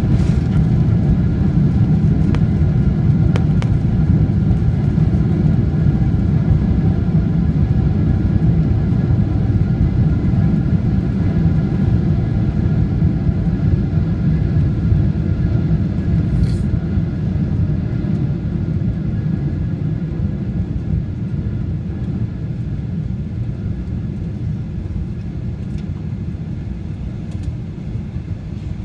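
Airliner cabin noise during the landing roll-out: a steady low rumble from the engines and wheels on the runway, slowly getting quieter as the plane slows.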